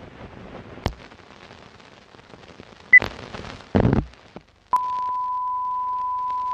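Faint tape hiss with a click, a very short high beep and a low thump. Then, about three-quarters of the way in, a steady pure test tone begins: the 'bars and tone' reference tone played with colour bars.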